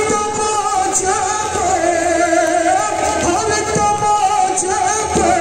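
Male voice singing a noha, a Shia lament, into a microphone, with long held notes that waver in pitch.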